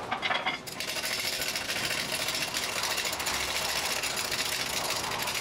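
Hydraulic shop press being run to bring its ram down close onto a stub axle before pressing it into a wheel bearing: a steady, rapid mechanical rattle that starts about a second in.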